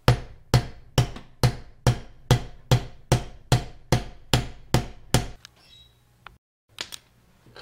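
A hammer striking a nut threaded upside down on the end of a Toyota Hilux rear differential's pinion shaft, about a dozen even blows roughly two a second, driving the pinion out of the carrier. The blows stop a little after five seconds in.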